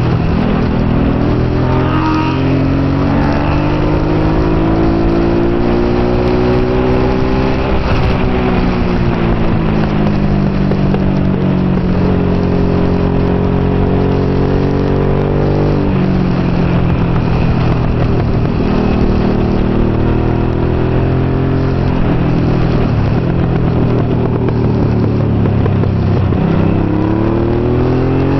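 Honda NT650 Hawk GT's V-twin engine heard from on board under race load. The pitch climbs and falls as the bike accelerates and slows through the corners, drops suddenly about halfway through at a gear change, and climbs hard again near the end.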